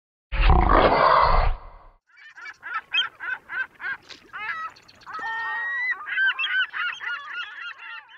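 A short burst of rushing noise, then birds calling in quick repeated honks, several calls a second, overlapping toward the end.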